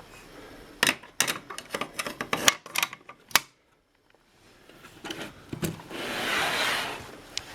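Olivetti Lettera 22 portable typewriter being worked by hand: a rapid run of sharp mechanical clacks for about two and a half seconds, then a second of sliding, rushing noise from the machine about six seconds in.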